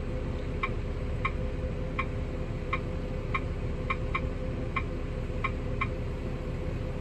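Short key-press clicks from a CHCNAV NX510 tablet's on-screen keyboard: ten irregularly spaced ticks, one per letter as a field name is typed, over a steady engine hum.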